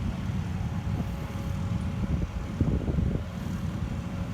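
Steady low engine rumble with a faint steady whine, with wind buffeting the microphone. Brief louder rustles come about two and a half to three seconds in.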